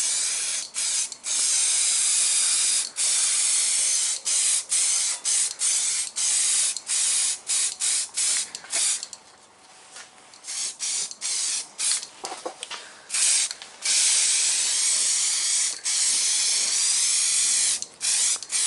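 Aerosol can of Galvi primer spraying in a run of short spurts and a few longer bursts of about two seconds each, with a brief break about halfway through.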